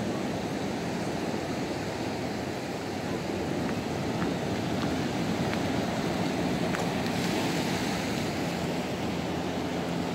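Ocean surf washing onto a sandy beach: a steady rush of breaking waves.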